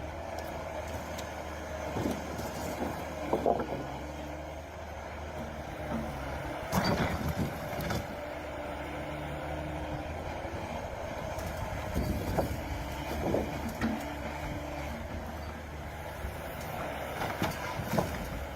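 HSM 904 forestry forwarder's diesel engine running steadily, with a few short knocks and clunks from the machine working now and then.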